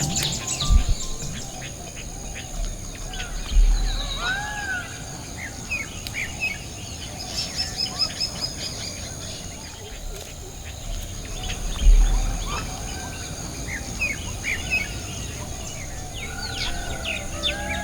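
Birds chirping and calling: many short high chirps and a few rising-and-falling whistled calls over a steady high-pitched whine. Three low thumps come through about a second in, near four seconds and near twelve seconds.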